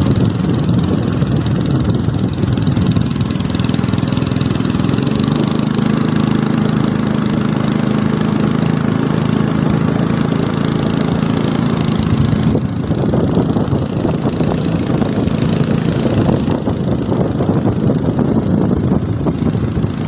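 Small boat engine running steadily as the wooden boat moves across the lake, with a brief dip in the sound about twelve seconds in.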